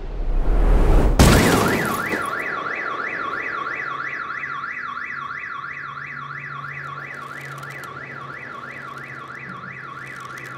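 A rushing swell ends in a heavy crash about a second in, and then a car alarm starts wailing, its pitch sweeping up and down about three times a second.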